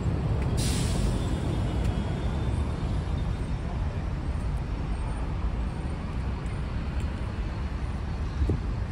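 Road traffic: vehicles passing in a steady low rumble. A short, sharp hiss comes about half a second in, and a brief low thump comes near the end.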